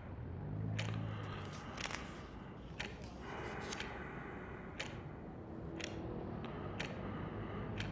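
Ticking clock, about one tick a second and evenly spaced, over steady room background noise. Fainter small clicks fall between the ticks, and a low hum swells briefly about a second in.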